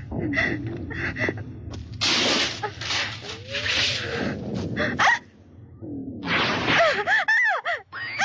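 A young woman's strained, breathy gasps as she forces her way up through thorns, several short bursts. About seven seconds in comes an eerie sound effect of quick tones swooping up and down.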